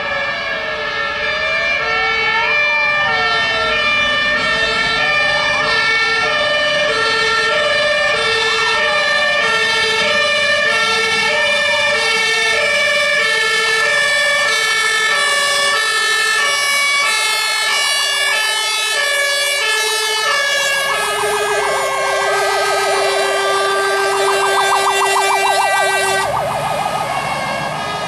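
Several fire engine sirens sounding together. A two-tone hi-lo siren alternates steadily while another wails up and down about every three seconds. In the second half a fast yelp takes over, and the higher tones cut off suddenly near the end.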